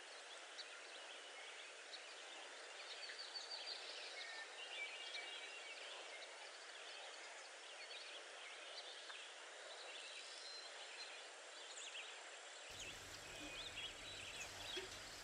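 Outdoor background ambience with many small birds chirping and twittering over a steady soft hiss.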